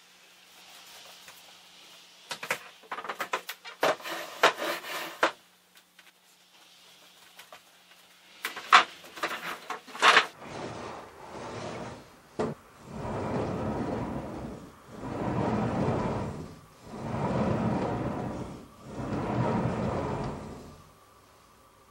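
Wooden fusuma sliding doors being handled: first scattered clicks and knocks, then the doors slid along their track four times, each slide a long rolling rumble.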